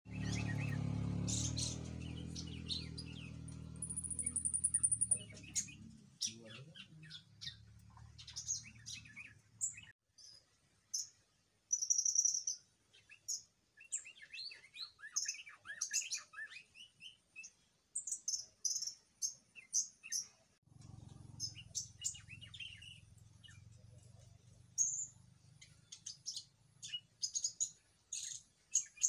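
Small birds chirping and trilling in short, repeated high calls. A low steady hum runs under them at the start, where it is the loudest sound, fades out about a third of the way in, and returns more faintly for the last third.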